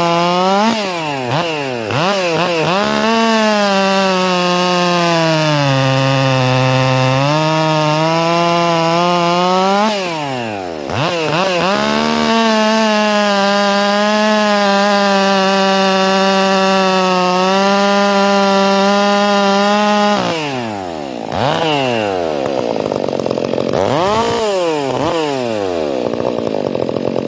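Stihl MS 400 C two-stroke chainsaw, fitted with a Red Beard air filter, running at full throttle through wood in test cuts. Its pitch sags as the chain bogs in the cut and climbs back. The revs drop and pick up again about ten seconds in and again about twenty seconds in.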